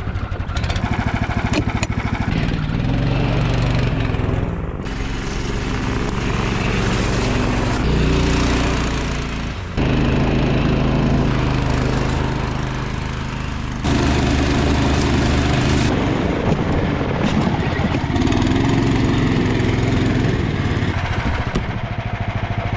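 A small engine running steadily, its pitch shifting between several abruptly cut segments.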